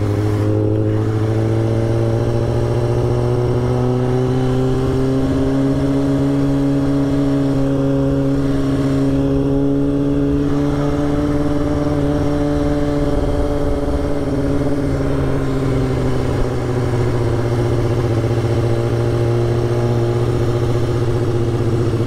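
2005 Kawasaki ZX-6R 636's inline-four engine and exhaust running at steady part throttle under way. Its pitch rises slowly over the first few seconds, holds, then eases down through the second half.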